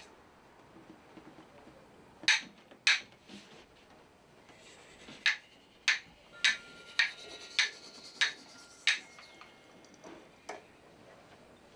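Two wooden sticks struck together, giving sharp dry wooden clacks. There are two clacks early on, then a run of about six evenly spaced ones a little over half a second apart with a faint ringing tone, and one more near the end.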